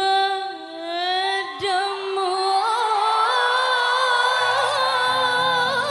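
A woman singing long, held notes, unaccompanied at first, with a slight waver in pitch; low sustained accompaniment chords come in about four seconds in.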